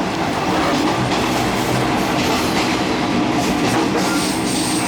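Overnight sleeper train carriage running along the track: a steady rumble and rattle with clicks of the wheels over the rails.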